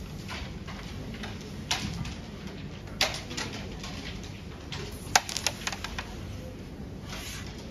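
Carrom striker flicked into the carrom men: a sharp crack about five seconds in, followed by a quick rattle of pieces clicking against one another and the board's wooden frame. A couple of lighter knocks come before it.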